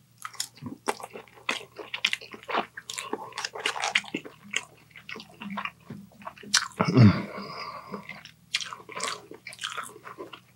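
Close-miked wet chewing and biting of a mouthful of takeout chicken and noodles, with dense irregular clicks and smacks. A short low hum from the eater, about a second long and the loudest sound, comes around seven seconds in.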